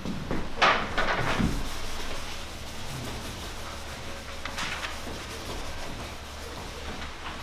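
Footsteps and a blackboard being wiped with an eraser: a few short scuffs and faint rubbing over a steady low room hum.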